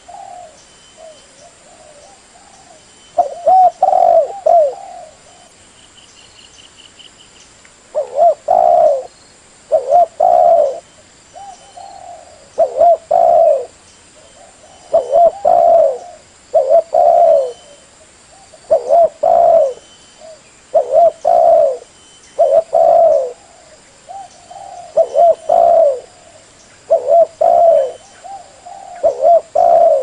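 Spotted dove cooing repeatedly in phrases of two or three low, hollow coos, a phrase every couple of seconds, with a longer pause of a few seconds early on.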